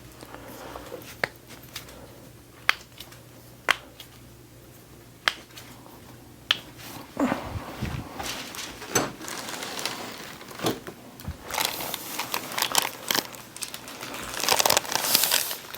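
Five single sharp clicks about a second or so apart, followed by rustling and crinkling that grows denser and louder near the end.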